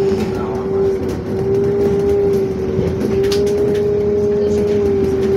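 Cabin sound of a LiAZ-52803 trolleybus riding in traffic: a steady, high electrical whine from the trolleybus's equipment over the low rumble of the ride, with a few light rattles.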